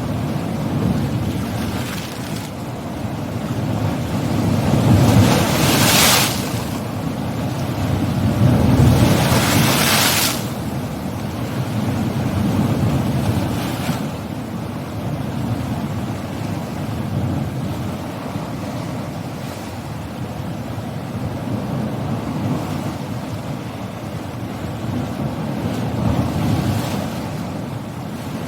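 Sea waves breaking on a shore: a continuous rush of surf that swells and falls, with two big breakers crashing about five and nine seconds in and smaller ones later.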